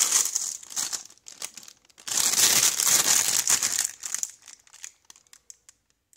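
Clear plastic bags crinkling and rustling as bagged model kits are handled and one is picked up. The rustling comes in two louder spells, at the start and again from about two seconds in, and dies away a little before the end.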